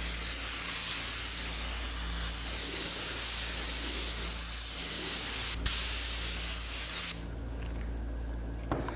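Spray gun hissing steadily as it mists a very light dusting coat of dye, cutting off abruptly about seven seconds in. A brief click partway through, over a steady low hum.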